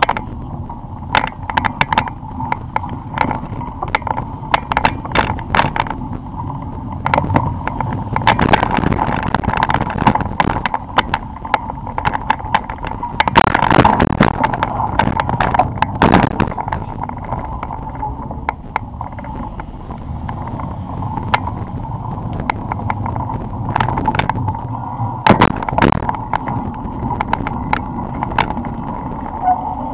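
Bicycle rattling and clattering over paving blocks, with frequent sharp knocks from the frame and fork throughout. It is a suspension test in which the front shock barely moves.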